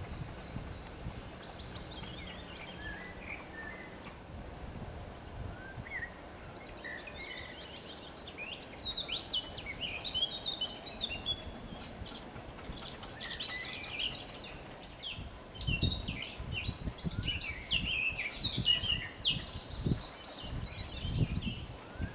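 Several songbirds chirping and trilling over a steady outdoor hiss, sparse at first and busier after about eight seconds. Low gusts of wind rumble on the microphone in the last third.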